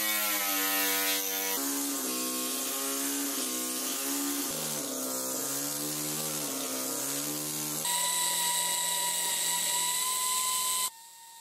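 Power tool grinding stone, its whine wavering in pitch as it bears into the stone over a steady hiss. About eight seconds in it switches to a steadier, higher whine, which cuts off suddenly near the end.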